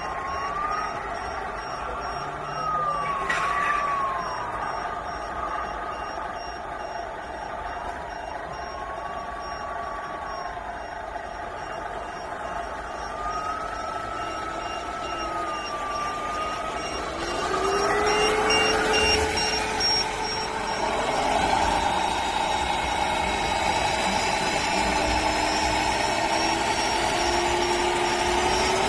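Electronic truck engine sound from the 1/14 Tamiya scale truck's Servonaut sound module, played through the model's small speaker. Its pitch rises and falls slowly with the throttle, and about two-thirds of the way in it gets louder as the engine sound revs up.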